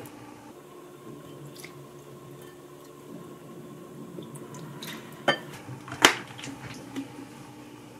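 Soy sauce being poured from a plastic bottle into a glass mixing bowl of sauce ingredients, with a wooden spoon stirring and a few sharp clicks and knocks against the glass, the loudest about six seconds in.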